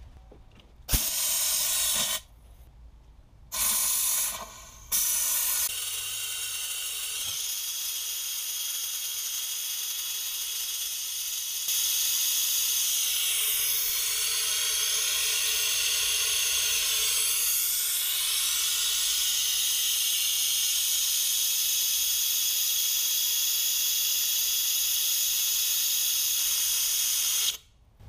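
Compressed air hissing through a venturi-type cooling-system vacuum filler on the coolant reservoir, pulling a vacuum on the cooling system. Two short blasts are followed by a steady hiss from about five seconds in, which grows louder at about twelve seconds and cuts off suddenly just before the end.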